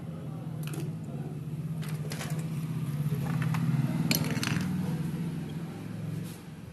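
Low engine drone, growing louder over about four seconds and fading near the end, with a few sharp clicks and clinks as plastic printer parts are handled.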